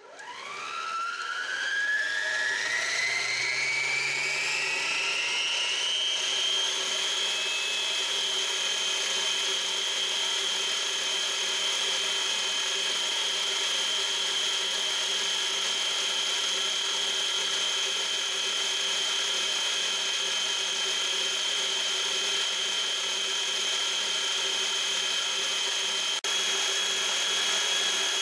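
Kenmore Elite Ovation stand mixer's motor starting up, its whine rising in pitch over the first several seconds, then running steadily while it creams butter in a glass bowl.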